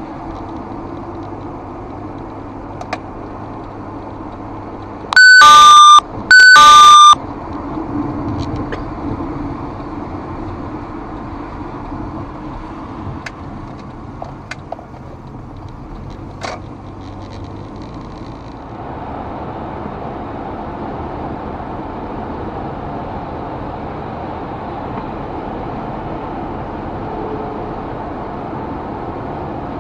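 Steady road and engine noise inside a moving car, picked up by a dash cam's built-in microphone. About five seconds in come two loud, pitched beeps, each under a second long and about a second apart. The road noise becomes a little louder near the end.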